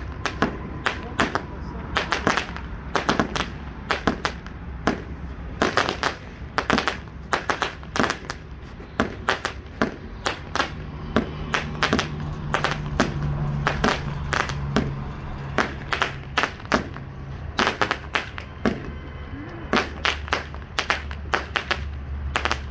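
Consumer firework cake, sold as Purple Chrysanthemum, firing shot after shot: a fast, irregular string of sharp launch pops and small aerial bursts, roughly two a second.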